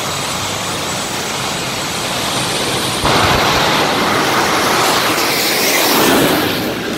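Jet-turbine drag cars running loudly at the start line, then a sudden jump in level about three seconds in as they launch under full power. The noise sweeps past and falls away near the end.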